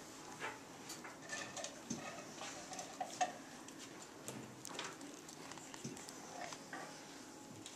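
Quiet classroom room tone: scattered light clicks and rustles, the sharpest about three seconds in, over faint murmuring.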